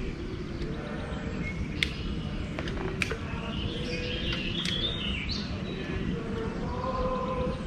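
Birds chirping over a steady low rumble, with three sharp clicks at about two, three and five seconds in.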